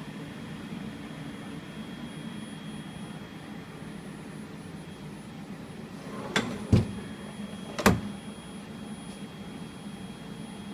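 Weiler DZ26 CNC lathe running with a steady hum and a thin high whine, broken by three sharp knocks about six to eight seconds in.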